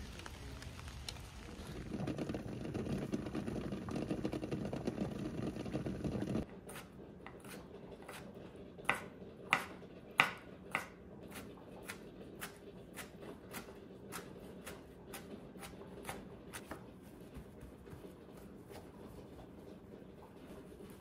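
A chef's knife chopping pickles on a plastic cutting board: a run of sharp taps about two a second, the loudest three a few seconds into the chopping, thinning out near the end. Before the chopping, several seconds of steady low noise.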